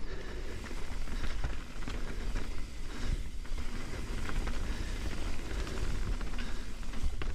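Mountain bike riding fast down a dirt singletrack: tyres rumbling over the ground, with frequent clicks and rattles from the bike and steady low wind buffeting on the microphone.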